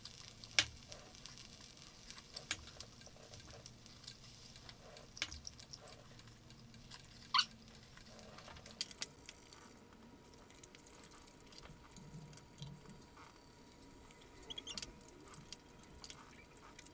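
Wet mouth sounds of chewing grilled beef short rib: scattered lip smacks and clicks, two of them sharper and louder, about half a second in and around seven seconds in. A faint grill sizzle fades out in the first couple of seconds.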